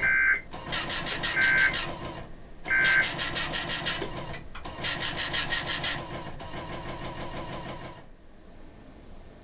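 Emergency Alert System end-of-message data tones: three short data bursts about a second and a half apart. Over and between them come louder stretches of rasping noise, each about a second long, with fainter noise that stops about eight seconds in.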